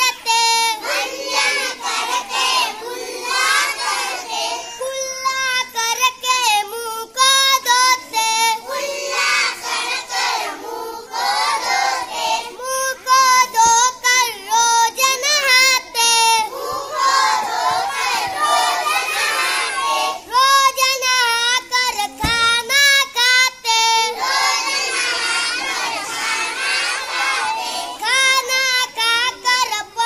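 Children singing a Hindi children's action poem, a boy's voice leading with a group of schoolchildren joining in.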